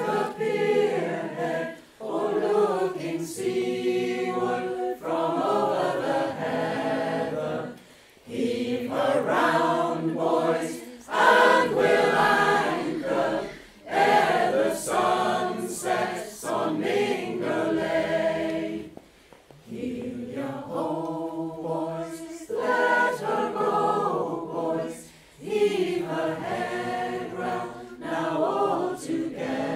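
Mixed-voice choir singing unaccompanied in harmony, in long phrases with brief pauses between them.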